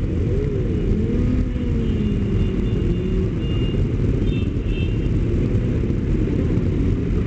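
A pack of motorcycles idling together in a steady low rumble, with engine notes rising and falling as riders blip their throttles.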